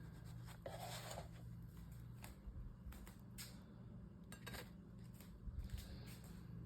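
Faint clicks and light scrapes of a spatula and dishes as cooked pancakes are lifted off the skillet, over a steady low hum.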